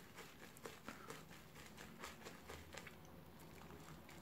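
Faint, irregular wet crackling and squishing of thick Tabac shaving-soap lather being worked on the back of a hand with a shaving brush, thinning out after about three seconds.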